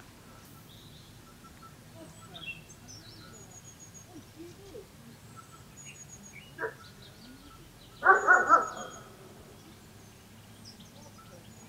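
A dog barks three or so quick times about eight seconds in, the loudest sound here, over small birds chirping.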